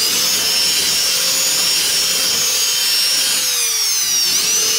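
Electric drill running a hole saw through a molded bonding strip, a steady high whine with cutting noise. The motor's pitch sags under load a little after three seconds and then picks back up.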